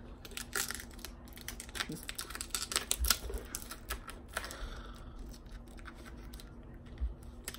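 Mailing tube and its packing being opened and handled by hand: a run of quick crackles and clicks that thins out after about five seconds.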